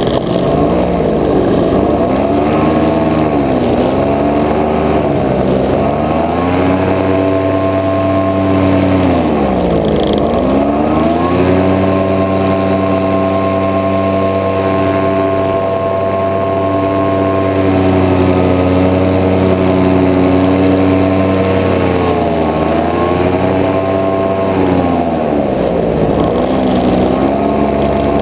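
Paramotor engine and propeller running in flight, the pitch sagging and swelling several times in the first ten seconds and again near the end as the throttle is eased off and opened. In between it holds a long steady stretch at high power.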